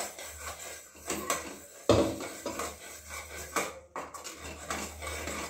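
Metal spatula scraping and clinking in a kadhai while peanut powder is stirred into thick sugar syrup, with one louder knock about two seconds in.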